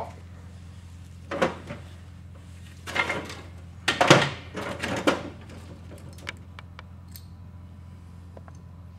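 Tools and small metal parts being picked up and handled at a workbench: a few short clattering knocks, the loudest about four seconds in, then a few light clicks, over a steady low hum.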